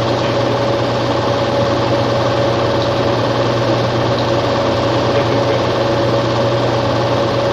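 A small motor running steadily, with a constant whine over a low hum.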